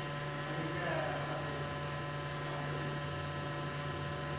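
Steady electrical hum at a fixed low pitch, with fainter steady tones above it.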